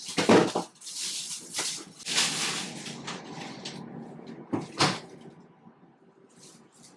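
Food being taken out of a refrigerator: plastic bags rustling and items knocking, with a couple of sharp knocks from the fridge door being shut.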